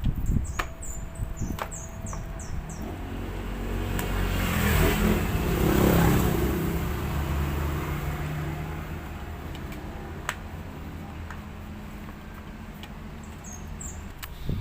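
A motor vehicle passing by, its engine and road noise swelling to a peak about five to six seconds in and then slowly fading away. A few short high chirps are heard near the start and again near the end.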